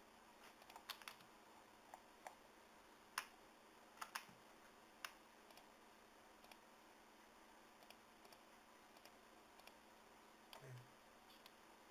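Faint computer mouse clicks, scattered and irregular, some in quick pairs, over a quiet background hiss. A soft low bump comes near the end.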